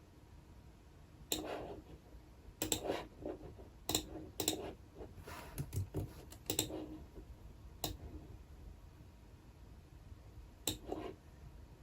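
Typing on a computer keyboard in sparse, irregular keystrokes, a few at a time, with pauses of a second or more between them.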